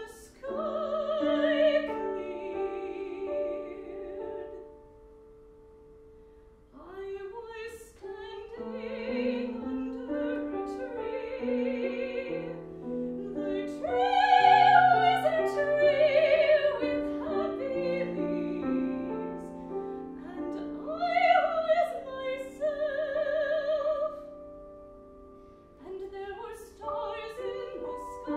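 A woman singing in a classical style with vibrato, accompanied by a grand piano. There is a short lull about five seconds in, where the sound fades almost away before voice and piano come back in.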